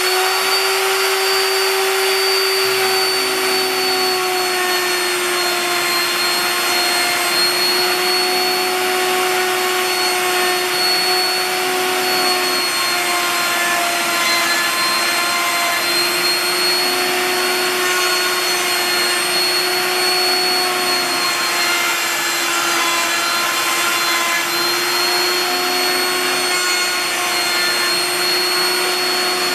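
Router motor on a home-built CNC router running at full speed with a steady high whine, its pitch dipping slightly now and then as it cuts into a wooden board. A shop vacuum pulling dust from the router's shroud runs along with it.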